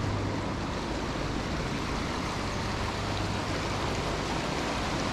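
Shallow river water running steadily over a limestone bed and rocks, a constant rushing noise.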